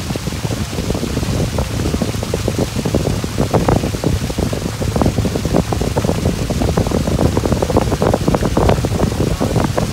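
Loud, steady wind buffeting the microphone with water splashing and rushing, the sound of a boat moving across open water. A steady low rumble runs underneath.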